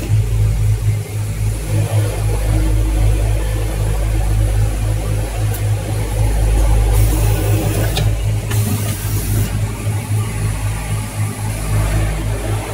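Automatic breathing-filter assembly machine running: a steady low machine hum that pulses rapidly, with a burst of hiss about seven seconds in and a few faint clicks.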